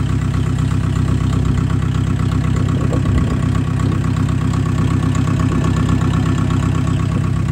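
Diesel tractor engine running steadily at a constant low speed, with an even rhythmic chug and no revving.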